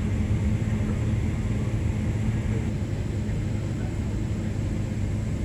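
Boeing 777-200ER heard from inside the cabin with its engines running: a steady low rumble.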